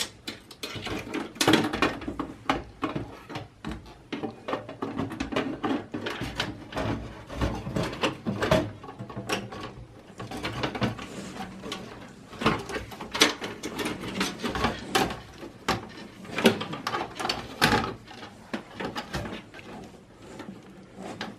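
Computer hardware being handled in a desktop tower case: irregular clicks, light knocks and rustling.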